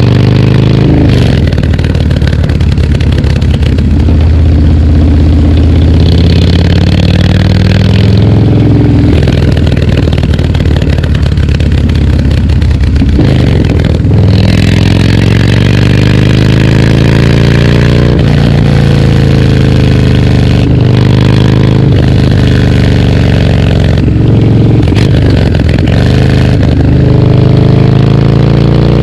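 Harley-Davidson Dyna Street Bob's V-twin running through a FAB28 aftermarket exhaust on the move. The engine note rises under throttle and drops away several times, with a deeper fall about 13 seconds in before it climbs again.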